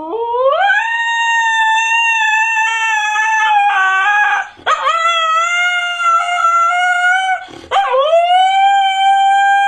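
A husky howling: three long howls, each sliding up in pitch and then held, with short breaks about four and a half and seven and a half seconds in.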